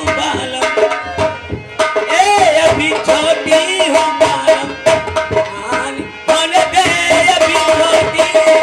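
Folk stage music led by tabla, with a melody instrument playing an ornamented tune over it. The music dips briefly about six seconds in, then carries on.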